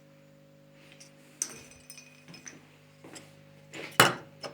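Small hard objects clinking and tapping as parts and tools are handled on an electronics workbench, with one sharp knock about four seconds in, over a steady electrical hum.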